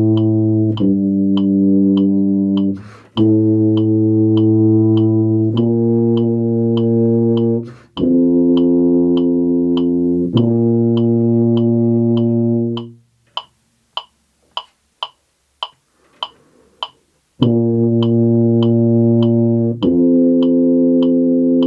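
Tuba playing sustained whole notes, each lasting about two and a half seconds and stepping between pitches, over a metronome clicking at 100 beats per minute. Quick breaths come between some notes, and about thirteen seconds in there is a rest of roughly four seconds where only the metronome clicks and a breath are heard.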